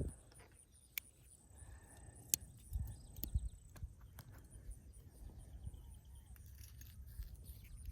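Quiet outdoor ambience: a faint low rumble and a thin high whine that stops before the halfway point, with a few scattered small clicks and knocks.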